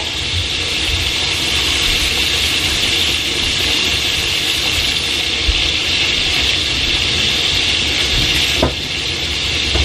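Sliced smoked sausage sizzling steadily in a cast-iron skillet as it browns and renders its fat, over a low rumble, with one brief knock near the end.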